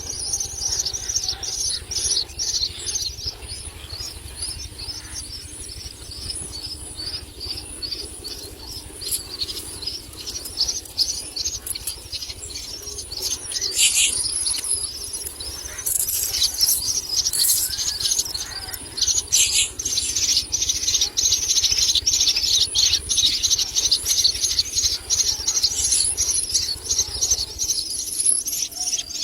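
Common myna nestlings giving rapid, high-pitched begging calls on and on, densest and loudest in the last third. A few sharper strokes around the middle and a steady low rumble sit underneath.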